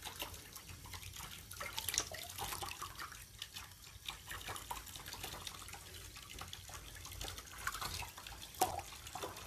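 Faint, scattered drips and small splashes of water in a tub while a wet rabbit is bathed by hand.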